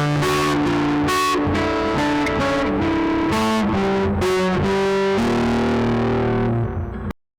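Guitar played through a phone app's guitar effect, picking a quick melodic phrase of changing notes; it cuts off suddenly about seven seconds in.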